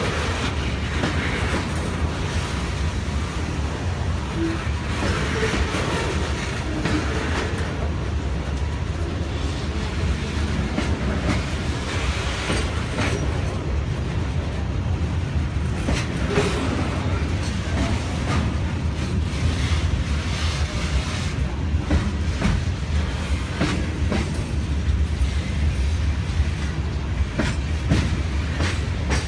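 Freight cars of a CSX mixed freight train rolling past: a steady low rumble of wheels on rail, with scattered clacks as the wheels pass over rail joints.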